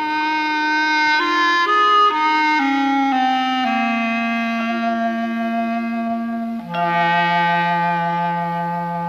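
Soundtrack music: a single wind melody of held notes falling step by step, ending on a long low held note.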